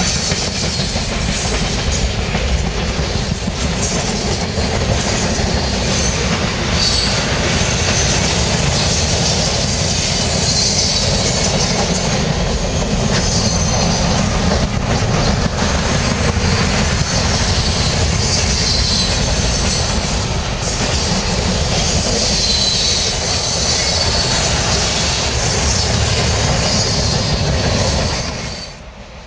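A freight train's tank cars and boxcars rolling past close by: a steady loud rumble of steel wheels on the rails, with high wheel squeal coming and going above it. The sound drops away sharply near the end.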